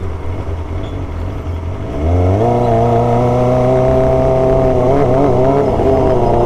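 Motorcycle engine on the move. After a low rumble, the engine revs up about two seconds in and settles into a steady drone at higher revs, with a brief wobble in pitch near the five-second mark.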